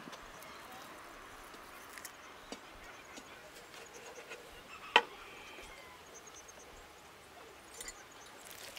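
Faint steady outdoor background hiss with a single sharp knock about five seconds in and a few fainter taps.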